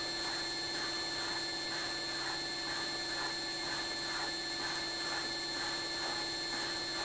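Bridgeport mill's slotting head running: a steady motor whine, with a faint scrape repeating a little under twice a second as the reciprocating cutter shaves a keyway into the steel coupler on each stroke.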